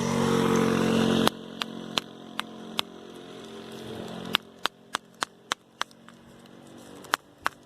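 Ratchet wrench clicking in sharp, irregular ticks, about two a second, as it is worked on a stuck starter mounting bolt. A steady pitched drone is loudest in the first second, then dies away over the next few seconds.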